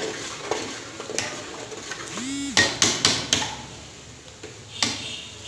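A metal spoon knocking and scraping against a metal pot while stirring thick semolina halwa: scattered sharp clinks, with a quick run of four about two and a half to three and a half seconds in.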